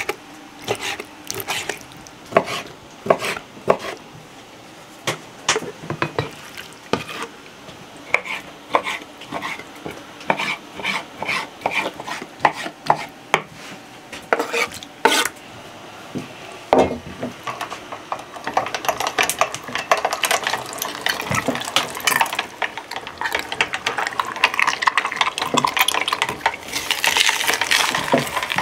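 A knife cutting raw pork liver on a wooden chopping board: sharp taps, one or two a second. After a cut, about two-thirds of the way through, a hand-cranked metal meat grinder mincing the liver with a continuous rattling grind.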